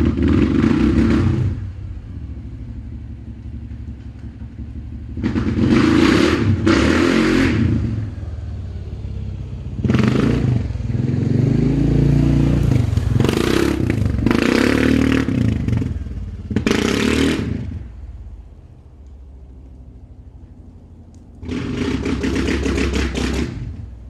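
Suzuki KingQuad 700 ATV engine running with a steady low hum, revved hard in repeated bursts of one to two seconds. There is a longer spell of revving in the middle.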